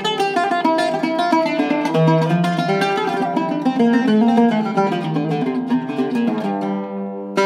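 Seven-course Iraqi-style oud with a cedar top and mahogany back, played solo: a run of quick plucked notes. Near the end it settles on a softer, ringing held note.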